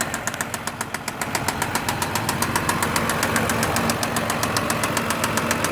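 2006 Mazda 6's 3.0-litre V6 engine running with a rapid, even ticking over it. The owner can't tell where the tick comes from, but to him it sounds like the top end of the engine.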